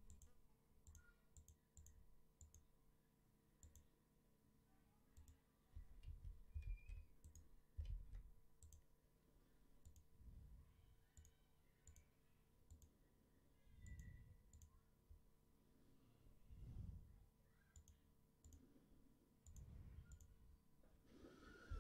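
Faint computer mouse clicks and scroll-wheel ticks, scattered and irregular, over quiet room tone with a few dull low thumps.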